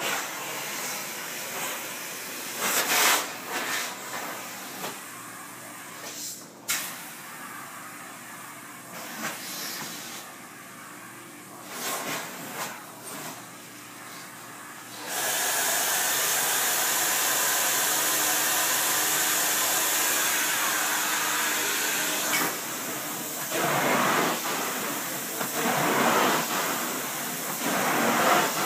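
Carpet-cleaning extraction vacuum with a steady, loud hiss from about halfway through, as the room's edges are worked. Before that there are intermittent short bursts of noise over a quieter background.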